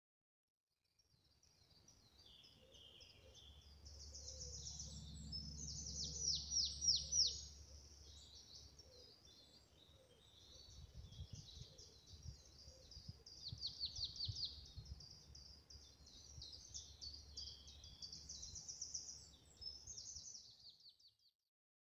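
Songbirds singing, with quick trills of descending notes, over a low outdoor rumble. The sound fades in about a second in and fades out near the end.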